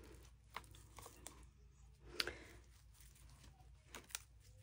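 Faint handling noise from gloved hands wiping a silicone mold with a paper towel: a few soft taps and rustles, the loudest about two seconds in and two more close together near the end.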